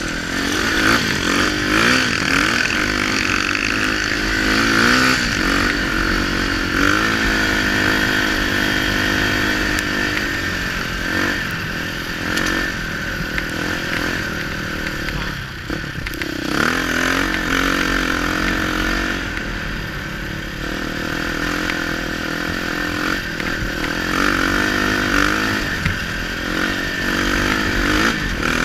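Enduro dirt bike engine heard from on board while riding, its pitch climbing and dropping again and again as the throttle is rolled on and off through the gears, with a brief drop about sixteen seconds in.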